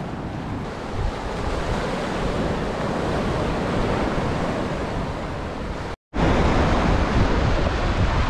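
Surf washing and breaking onto a rocky, sandy shoreline, with wind buffeting the microphone. The sound cuts out for a moment about six seconds in, then returns with a heavier low wind rumble.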